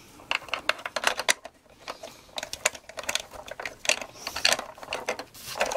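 Irregular clicking and tapping of hard plastic: a Playmobil figure knocking against the seat and cab parts of a plastic toy Volkswagen T1 camper bus as it is pushed into the driver's seat.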